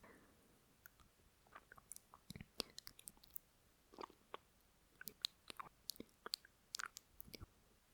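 Faint close-miked lip noise: scattered small wet clicks and smacks of a person's lips and mouth, coming in irregular clusters. They are the stray mouth noises a microphone picks up between spoken lines.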